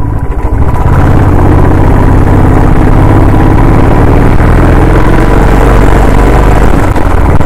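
Royal Enfield Classic 350 single-cylinder engine running steadily as the motorcycle rides uphill, heard from the rider's seat together with road noise.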